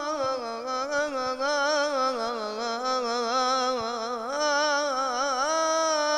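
A man's solo voice chanting an Islamic devotional ibtihal, drawing out one long melismatic phrase with continuous wavering ornaments. The voice grows stronger about four seconds in and steps up in pitch near the end.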